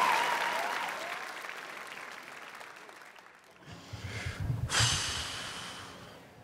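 Theatre audience applauding, dying away over the first three seconds. About four seconds in there are a few soft low thumps and a brief hiss close to the microphone.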